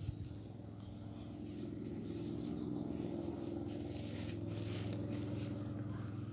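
A motor vehicle's engine hum that grows louder over the first couple of seconds and then holds steady.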